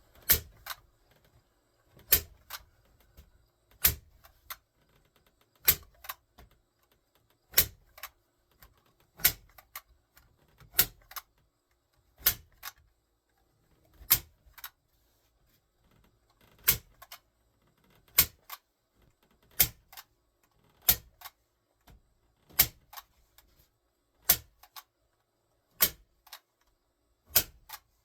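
Staple gun firing staples through rubber-backed carpet into a wooden dolly frame: about two dozen sharp snaps, one every second or two, often in quick pairs.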